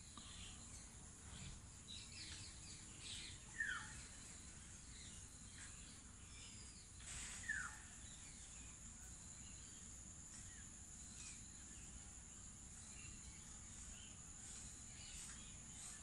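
Faint outdoor ambience: a steady high insect drone with scattered bird chirps. Two short falling bird calls stand out, about three and a half and seven and a half seconds in.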